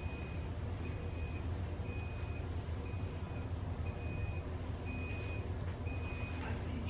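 Hospital medical equipment alarm beeping in a steady pattern, one high half-second beep about once a second, over a low steady hum.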